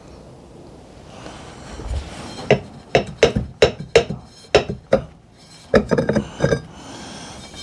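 Honda GL1000 Gold Wing brake disc being worked loose and lifted off the wheel hub: a run of sharp metallic clinks and knocks, about a dozen, from about two and a half to six and a half seconds in.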